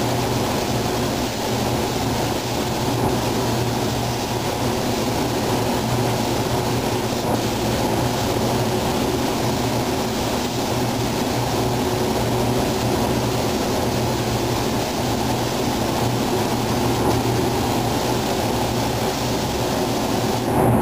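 Steady rushing air in a paint spray booth: ventilation fans running with a steady low hum, under the hiss of a gravity-feed spray gun spraying paint.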